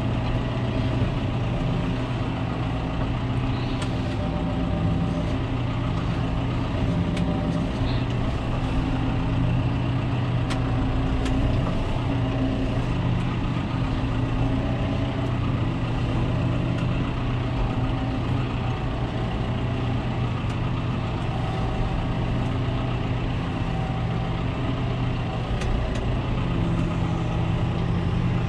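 John Deere tractor's diesel engine running at low revs, its speed rising and falling slightly as the tractor is manoeuvred into position.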